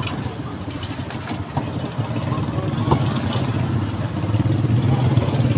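Chips deep-frying in large fryer baskets of oil, a steady sizzle, under a steady low engine-like rumble that grows louder in the second half, with a few sharp clicks.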